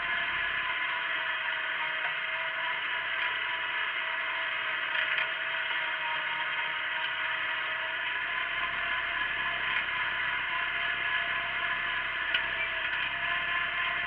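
Wheel Horse garden tractor running steadily under load while pulling a single-bottom plow, a constant mechanical whir and clatter heard through a camera mounted on the tractor, with a sharp click about twelve seconds in.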